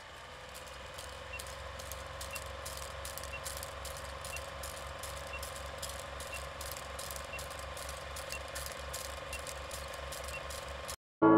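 Film projector sound effect: a steady whir with rapid clicking and a fast low flutter, and a faint short beep each second. It cuts off suddenly near the end, and a loud ringing chime begins just at the close.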